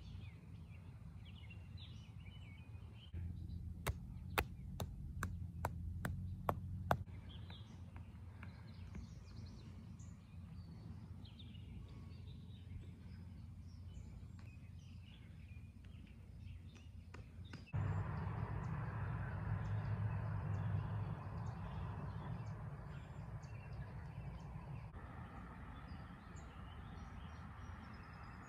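Birds chirping over a low, steady rumble of distant machinery. The rumble grows louder a few seconds in, with a quick run of about eight sharp clicks, and again after about eighteen seconds, joined by a broad hiss.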